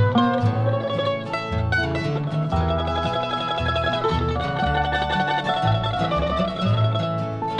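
Bluegrass band playing an instrumental break: acoustic guitar, mandolin and banjo picking over an alternating bass line, with some notes sliding in pitch.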